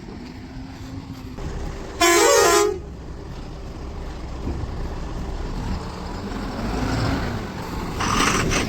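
Vehicle horn sounding one short blast about two seconds in, over the steady low rumble of a heavy diesel engine running; a short noisy burst comes near the end.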